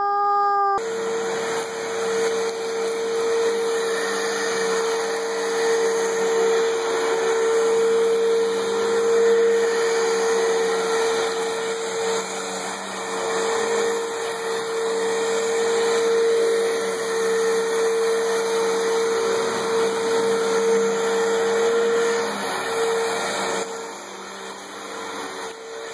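Vacuum cleaner running with a steady hum. It starts suddenly about a second in and gets quieter near the end.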